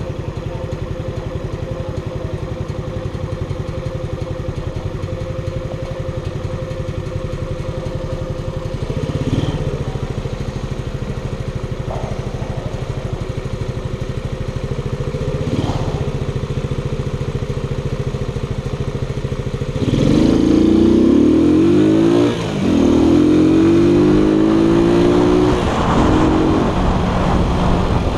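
Keller Crono 110 scooter's 110 cc engine idling steadily while stopped, then revving up about twenty seconds in as it pulls away, the pitch rising, easing off briefly and rising again.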